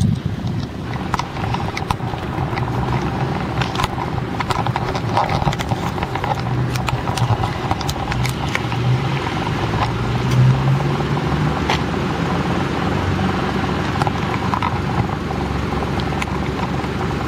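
Street traffic noise, with a car engine running close by that swells a little over halfway through, and scattered sharp clicks over it.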